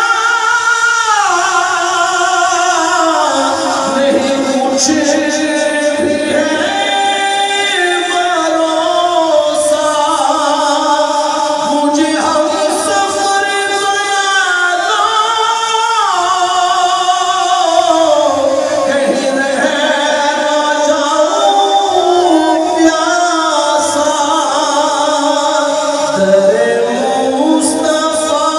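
A man singing an Urdu naat (devotional poem in praise of the Prophet) unaccompanied into a microphone, in long, sliding, ornamented phrases.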